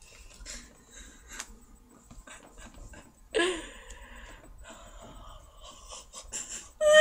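Quiet room sounds from two people close to the microphone: faint rustling, small clicks and breathing, with one short breathy burst of stifled laughter a little past three seconds in.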